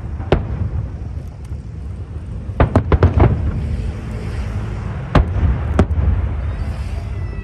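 Aerial fireworks bursting over a continuous low rumble. There is a sharp bang about a third of a second in, a quick run of four or five bangs around three seconds in, and two more a little after five seconds.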